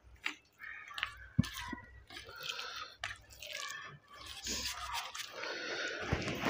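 Curry rice being mixed by hand on a steel plate: wet squishing and fingers scraping on the metal in irregular bursts, with a few sharp clicks and a louder stretch near the end.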